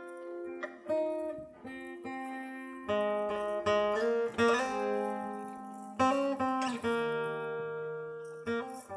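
Solo acoustic guitar playing an introduction: picked notes and strummed chords, each left to ring, with the fullest chords about three and six seconds in.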